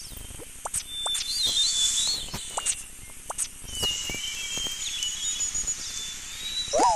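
Animal calls: quick squeaky chirps and warbling bird-like whistles, with a short call near the end that rises and falls in pitch.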